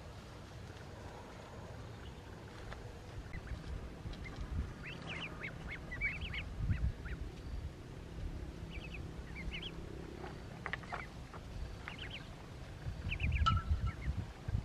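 Ducklings peeping: short, high cheeps in scattered clusters, starting a few seconds in, over a low rumble.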